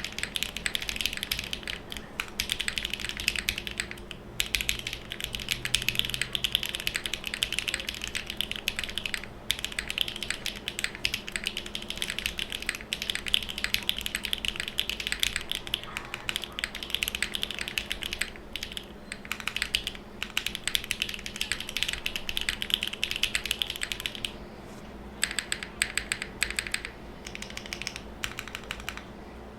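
TKD Cycle7 mechanical keyboard, full aluminium plate and gasket-mounted, being typed on fast and continuously: a dense run of sharp key clacks with a short pause about four-fifths of the way through.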